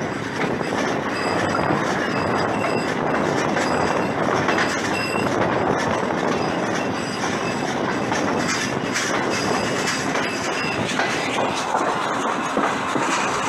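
Passenger train coaches running along the track, heard from an open window of the moving train: a steady rumble and clatter of wheels over the rails, with short high-pitched wheel squeals coming and going.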